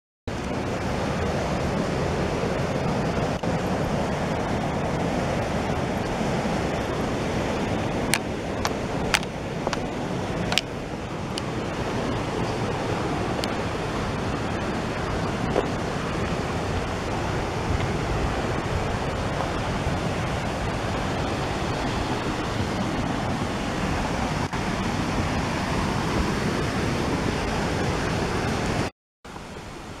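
Steady rush of river water running over rapids, with a few sharp clicks about eight to eleven seconds in. The sound drops out briefly near the end.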